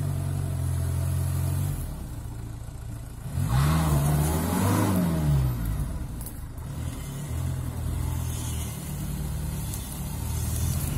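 Off-road vehicle's engine running under load, revved up about three and a half seconds in and falling back about two seconds later, then running steadily again.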